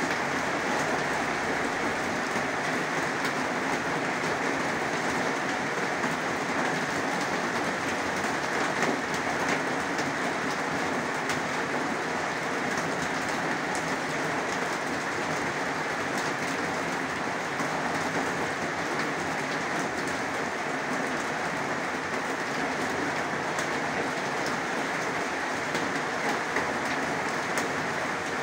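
Heavy rain falling steadily: an even hiss of rain with scattered sharp drop ticks.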